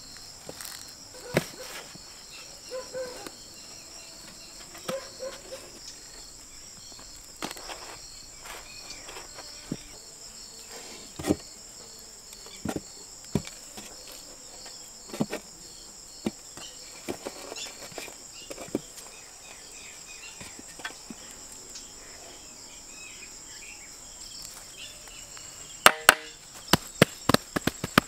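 Insects chirping steadily in a high, pulsing drone, with scattered knocks and taps. Near the end comes a quick run of sharp, loud taps.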